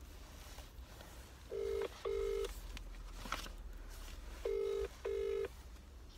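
Telephone ringback tone heard through a phone's loudspeaker: two double rings, each a pair of short steady buzzing tones, the British-style ring cadence of an outgoing call waiting to be answered.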